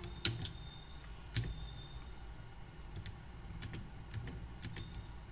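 Computer keyboard keystrokes: slow, irregular key clicks as a short command is typed, a few at the start, a pause of about a second and a half, then several more.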